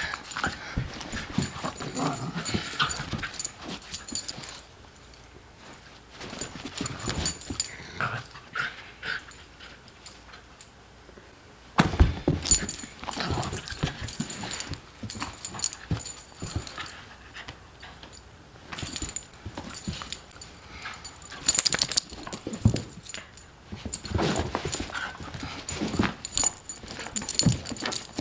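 Beagle puppy making small vocal play noises and scuffling while wrestling with a person's hands on carpet, with scattered knocks and a louder thump about twelve seconds in.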